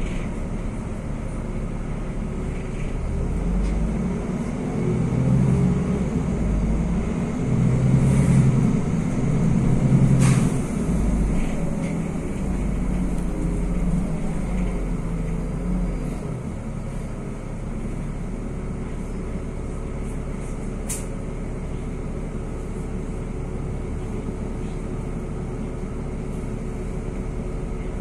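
NefAZ 5299-40-52 city bus heard from inside the passenger cabin while driving: the engine and road noise swell for several seconds, then settle to a steady cruise about halfway through. Two brief sharp clicks come through, one about ten seconds in and one past the twenty-second mark.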